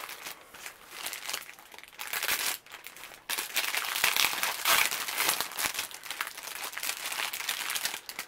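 Clear plastic packaging crinkling and rustling as hands rummage through and handle it, sparser at first and louder and busier from about three seconds in.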